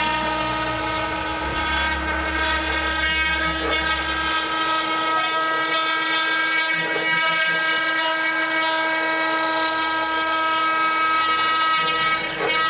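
CNC router's spindle and stepper-driven axes running while carving a pine board, a steady whine made of several tones over a noisy cutting hiss; a low hum drops away about four seconds in. The machine is being run at a raised feed rate, at which its x-axis stepper lost steps.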